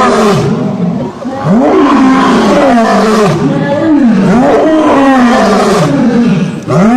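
A large animal giving a loud series of harsh calls, each rising and then falling in pitch, about one a second.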